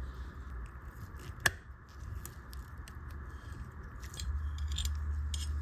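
Small, sharp metal clicks from watchmaker's tools working on a pocket watch case and movement, with one louder click about one and a half seconds in. A low steady hum lies underneath and grows louder about four seconds in.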